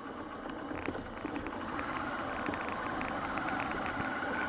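Motorcycle riding over a bumpy dirt road, its engine running steadily under road noise, with frequent small rattles and clicks as the bike jolts over the ruts. About two seconds in, a higher steady tone comes in and holds.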